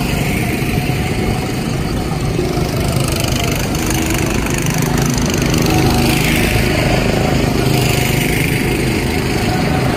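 Go-kart engines running steadily as several karts drive past on the track.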